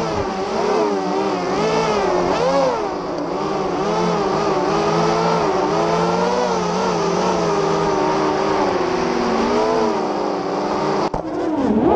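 FPV racing quadcopter motors whining, their pitch wavering up and down with the throttle. There is a brief dropout about eleven seconds in, then the pitch swoops down and climbs again.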